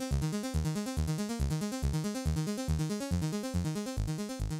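Background music with a steady pulsing beat and repeated keyboard-like notes, slowly getting quieter.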